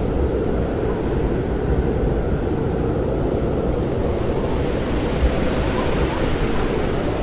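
Steady rush of airflow buffeting the onboard action camera's microphone on a flying FPV quadcopter, a dense low rumble with no distinct motor whine.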